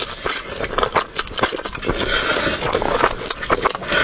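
Someone eating instant noodles: many short sharp clicks and scrapes of utensils against the bowl with chewing and slurping, and a longer hissing slurp about two seconds in.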